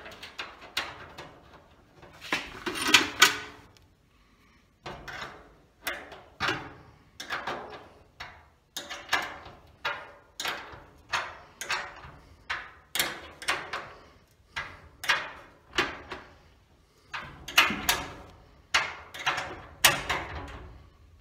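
Nuts being wound on by hand inside a small, light Colorbond sheet-steel letterbox, the thin metal box rattling and scraping in short, even strokes about three every two seconds. A louder clatter comes about two to three seconds in.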